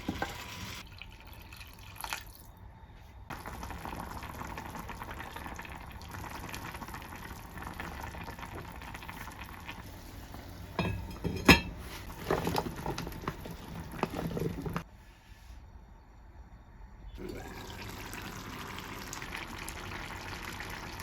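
Kitchen sounds of running liquid, broken off several times by abrupt cuts. A single sharp knock about eleven and a half seconds in is the loudest sound.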